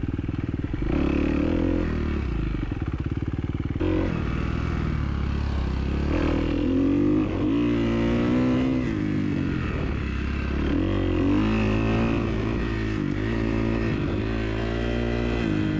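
Dirt bike engine running while being ridden along a trail. Its pitch is fairly steady for the first few seconds, then rises and falls again and again as the throttle is worked.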